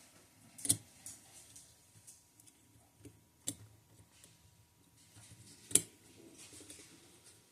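Small metal tools clicking and tapping against the parts of a watch movement: three sharp clicks a few seconds apart, with fainter ticks between them.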